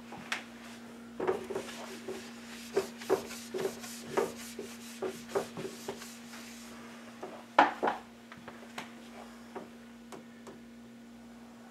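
A whiteboard being wiped clean in a run of quick rubbing strokes, with one louder knock about two-thirds of the way through. A steady low electrical hum runs underneath.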